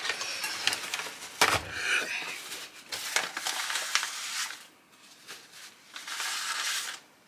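Paper sandwich wrapper and bag crinkling and rustling as they are handled, in uneven spells, with a sharp knock about a second and a half in.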